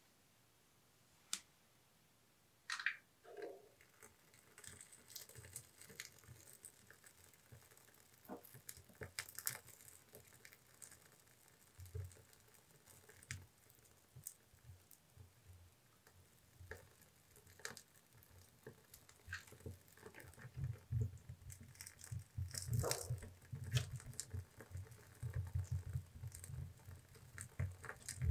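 Wood fire crackling in a stove firebox, with scattered irregular pops and snaps after a near-silent first couple of seconds. A low rumble of the burning builds from about twenty seconds in.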